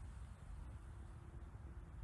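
Quiet outdoor ambience: a faint, uneven low rumble with no distinct event.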